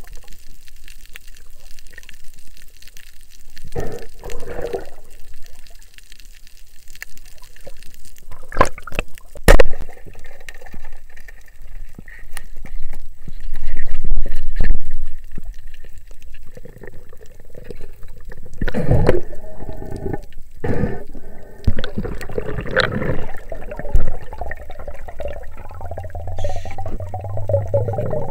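Water sloshing and bubbling against an underwater camera as a diver swims, muffled and uneven. There is a sharp knock about nine seconds in and a louder low rushing a few seconds later.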